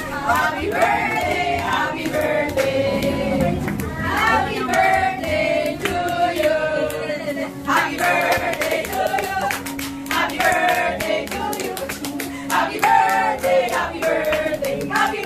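A group of people singing a birthday song together, with hands clapping along throughout.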